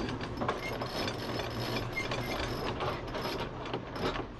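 Sailing yacht's sheet winch clicking rapidly as the sheet is hauled in during a tack, the winch pawls ratcheting as the drum turns.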